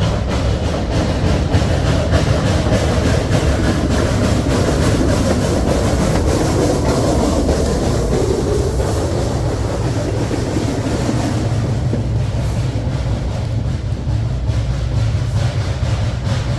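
Narrow-gauge train running on the track: a steady low rumble with many sharp clicks from the wheels on the rails.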